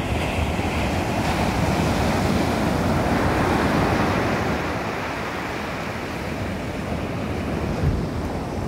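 Ocean surf breaking and washing up a sandy beach as a steady rush, swelling about a second in and easing after about four seconds. Wind buffets the microphone with a low rumble.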